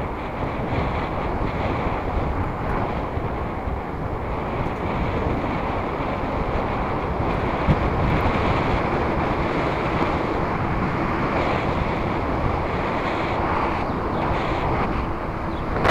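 Wind rushing over the microphone of a camera on a moving bicycle, a steady low rumbling noise, with one brief knock about eight seconds in.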